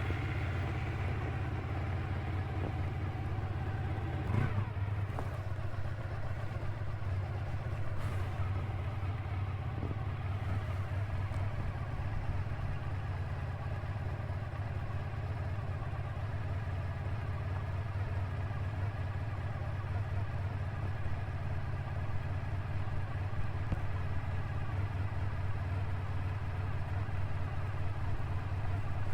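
1986 Honda VF1000R's V4 engine running steadily at an even speed, with a short click about four seconds in.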